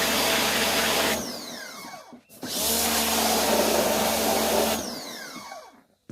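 Pressure cleaner spraying water with its motor running, cutting out about a second in and spinning down in a falling whine, starting up again and spraying, then cutting out and spinning down once more near the end.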